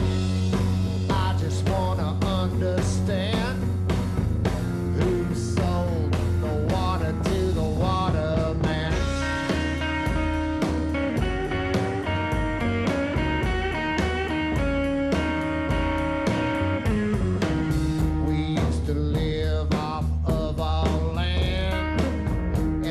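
Live blues-rockabilly band playing an instrumental passage: electric guitar lines with bent notes over a steady double-bass line and a driving drum beat.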